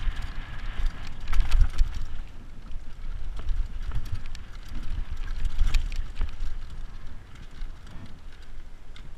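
Full-suspension downhill mountain bike descending a dry, rocky dirt trail at speed: tyres rumbling and crunching over dirt and stones, with the bike clattering and clicking over bumps. Wind buffets the camera's microphone.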